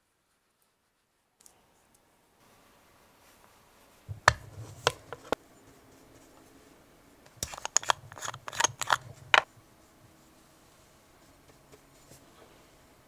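Makeup brush and clear plastic eyeshadow palette being handled: a short group of sharp clicks and taps about four seconds in, then a denser run of them a few seconds later.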